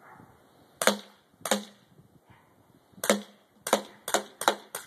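A Crosman Pro 77 CO2 blowback BB pistol firing seven sharp shots: two about half a second apart early on, then, after a pause, a quicker string of five.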